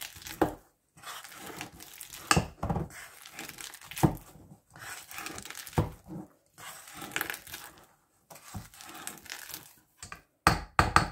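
Wire potato masher working a soft cheese mixture in a stainless steel bowl, mashing and scraping, with the masher knocking against the bowl every second or two and a quick run of knocks near the end.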